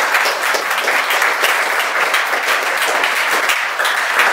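Audience applauding: many people clapping at once, a dense, steady patter of claps.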